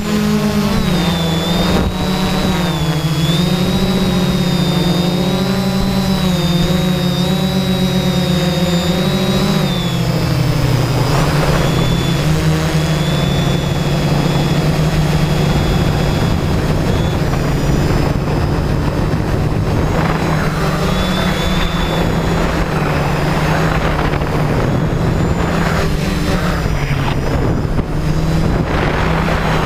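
Drone's electric motors and propellers whining steadily, heard from the drone's own camera. The pitch wavers up and down as the motors constantly adjust speed.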